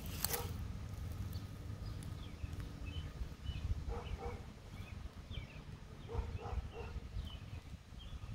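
Outdoor ambience: a steady low rumble, typical of wind on the microphone, with faint scattered short chirps and soft handling noises from hands adjusting the camcorder. No siren is sounding.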